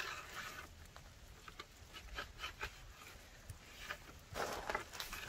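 A knife slicing a raw salmon fillet into strips on a plywood board: scattered faint taps and scrapes of the blade against the wood, with a soft rustle near the start and again near the end as the fillet is handled.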